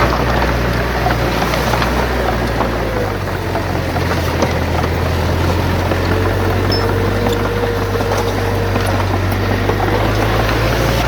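Heavy diesel engine of a bulldozer running steadily, its low hum shifting in pitch about three seconds in, with a faint whine above it and occasional small clanks.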